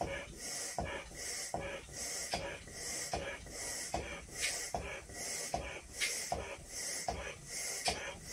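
A 14-inch Belbal latex balloon being blown up by mouth: a steady rhythm of quick breaths, a hissing inhale and a push of air into the balloon about every three-quarters of a second, with small clicks at the neck.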